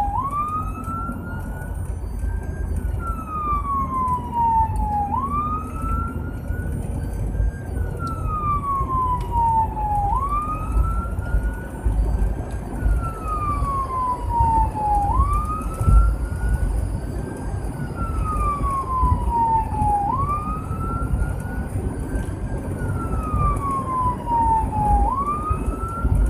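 Emergency vehicle siren in wail mode, heard from inside the responding vehicle's cab: the pitch climbs quickly, then slides slowly down, about once every five seconds, over a steady low rumble of engine and road.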